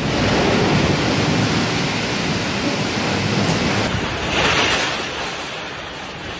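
Storm noise: a dense roar of strong wind and heavy surf, with wind buffeting the microphone. About four seconds in the sound changes abruptly and a hissing surge swells briefly.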